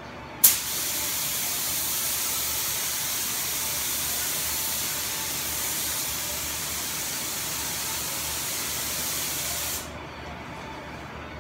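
Compressed-air paint spray gun spraying paint: a sharp burst of air as the trigger is pulled about half a second in, then a steady hiss for about nine seconds that cuts off suddenly when the trigger is released near the end.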